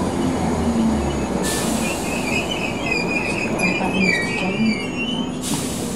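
Class 313 electric multiple unit heard from inside a carriage as it slows into a station: a steady running rumble, with high, wavering squeals from about a second and a half in until near the end as it brakes. A short hiss comes just before the end.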